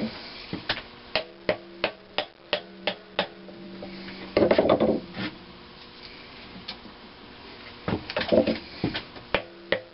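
Sharp metallic clicks and light knocks, about three a second at first, from a McCormick-Deering type M one-cylinder engine as its flywheel and crankshaft are turned a little at a time by hand to bring the piston back. About halfway through there is a louder rough clatter, then more clicks near the end, over a steady hum.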